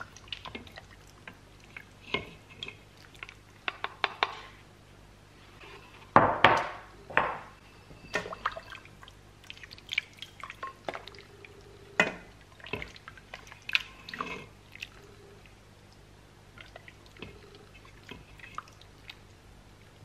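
Soup being ladled out of an Instant Pot's stainless steel inner pot into bowls: liquid splashing and dripping, with scattered knocks of a plastic ladle against the pot. The biggest pour comes about six seconds in.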